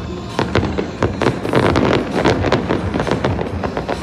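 Fireworks display going off: a dense run of sharp bangs and crackles, one after another, starting about half a second in.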